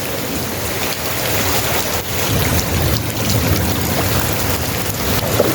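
Heavy rain with wind buffeting the microphone: a steady rushing noise with a low rumble.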